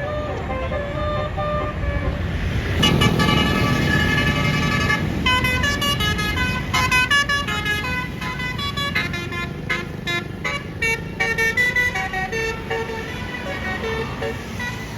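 Basuri 'telolet' multi-trumpet bus horn playing a quick tune of short notes that change pitch several times a second. A bus engine swells loudly past about three seconds in.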